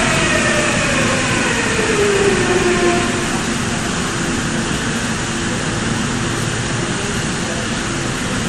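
Seoul Line 7 first-batch 7000-series train's GEC Alstom GTO inverter whining down in pitch as it brakes into the station. The whine fades out about three seconds in, leaving a steady low hum and running noise as the train creeps to a stop.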